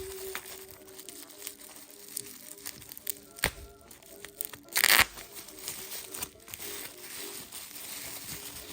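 Packaging crinkling and rustling as it is handled, with a sharp click about three and a half seconds in and a louder crackle just before five seconds. Soft background music plays throughout.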